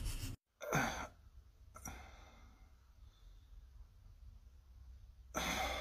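Faint breathing sounds: a short sigh-like breath about half a second in, a softer one near two seconds that fades away, and a longer breath just before the end, over a low steady room hum.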